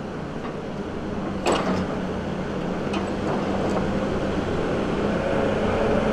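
Tigercat 234 knuckleboom loader's diesel engine running steadily as its hydraulics swing the boom and open grapple up off a loaded log trailer, growing gradually louder. A single knock about one and a half seconds in.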